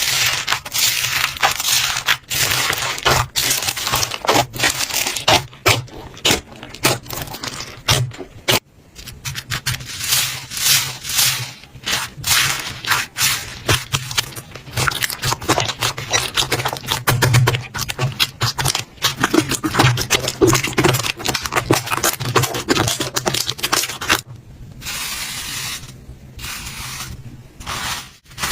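Slime being squished and worked by hand, a dense run of small crackles and pops that thins out briefly twice.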